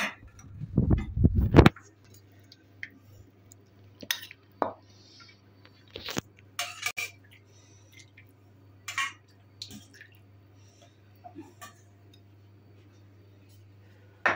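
Dishes clinking as food is served: scattered sharp clinks of a pot and plates being handled. There is a dull low rumble about a second in.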